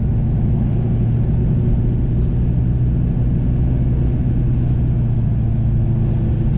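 Steady in-cab drone of an LML Duramax pickup driving at a constant speed, its 6.6-litre turbo-diesel V8 humming under a haze of road noise, with a few faint ticks.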